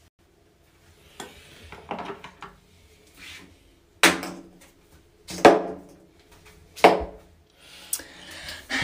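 A few soft knocks, then three loud sharp knocks about a second and a half apart, each ringing on in a small tiled room.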